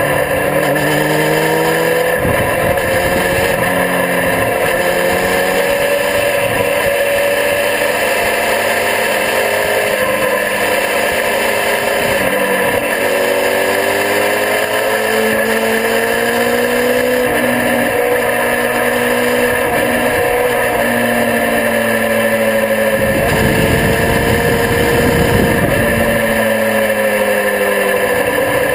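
A sport motorcycle's engine heard from an onboard camera at track speed, its pitch climbing and dropping as the rider accelerates, shifts and rolls off through the corners, over constant wind rush. From about 23 to 26 seconds in, a low rumble of wind buffeting swells over the engine.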